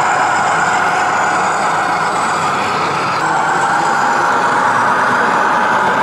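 Radio-controlled model Fendt tractor running with a steady, engine-like whine that dips in pitch about three seconds in.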